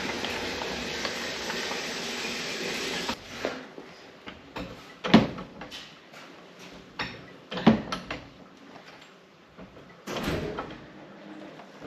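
A steady hiss that cuts off abruptly about three seconds in, followed by scattered knocks and clunks, three of them loud and about two and a half seconds apart.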